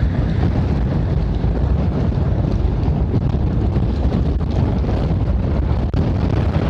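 Gale-force storm wind buffeting the microphone in a steady low rumble, over the rush of large storm waves breaking over a rock flood wall and sheets of seawater pouring down its face.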